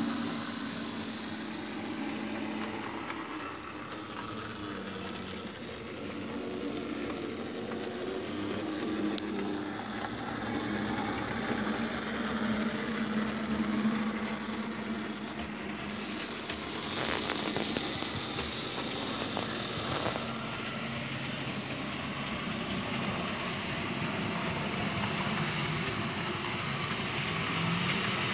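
Model railway Class 60 locomotive running with a train of empty stone hopper wagons: a steady motor hum with the rolling noise of wheels on the track. One sharp click about nine seconds in, and a louder hiss of wheel noise for a few seconds past the middle.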